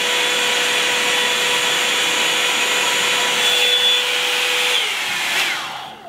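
Revlon One-Step Hair Dryer & Volumizer hot-air brush running: a loud, steady rush of air with a motor whine. It is switched off about five seconds in, and the whine falls as the fan winds down.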